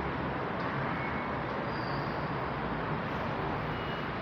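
Steady background din of a busy urban train station, a low rumble and hiss with no distinct events.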